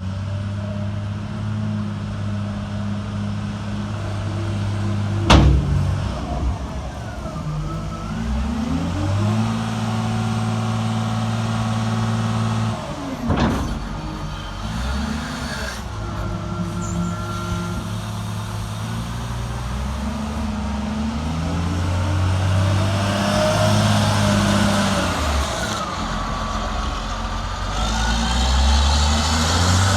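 Caterpillar 950G wheel loader's diesel engine running, its revs rising and falling several times with stretches held high. Two sharp knocks come through, about five and thirteen seconds in.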